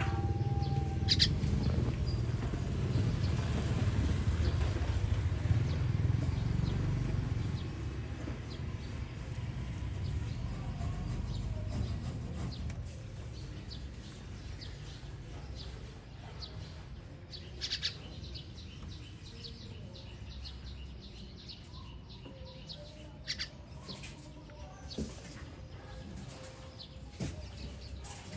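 Baby birds giving short, high chirps, a few at first and more of them near the end, while a passing motor vehicle's low rumble fades away over the first several seconds.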